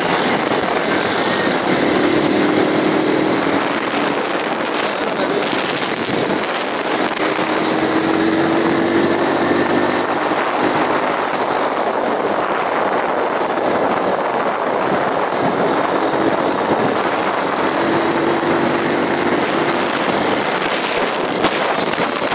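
Steady rush of wind on the microphone over motorcycle engine and road noise, recorded from a moving bike riding alongside other motorcycles. A faint engine hum swells now and then.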